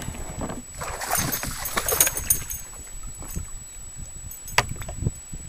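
Water splashing and sloshing around a fishing kayak, with wind rumbling on the microphone, most active about one to two seconds in. A single sharp knock about four and a half seconds in.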